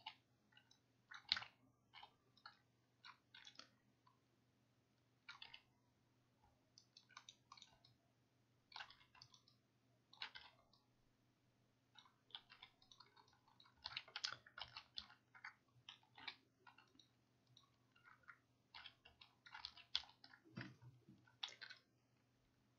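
Faint, irregular clicking of a computer mouse and keyboard, in small clusters every second or two, over a low steady electrical hum.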